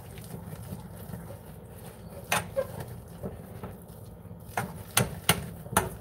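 A utensil stirring thick churro dough in a saucepan, knocking sharply against the pot several times, most of them in the second half, over a steady low hum.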